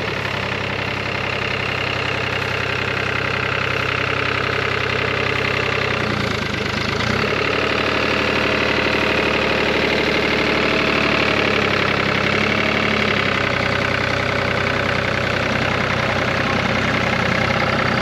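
Farm tractor's diesel engine running at light throttle while the mired tractor is winched out of the mud, just enough gas for its rear wheels to turn. Its pitch dips briefly about six seconds in, then it runs on steadily and a little louder.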